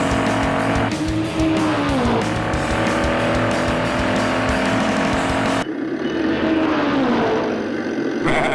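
Background rock music with sustained notes that slide down in pitch twice, over a busy beat.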